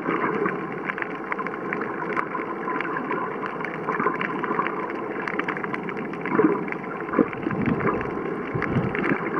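Underwater ambience picked up by a camera held under water: a steady muffled wash of water, dotted all through with many sharp clicks and crackles, and some low, uneven rumbling in the second half.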